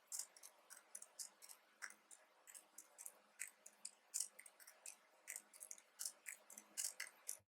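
Faint keyboard typing: irregular light key clicks, a few each second, stopping abruptly near the end.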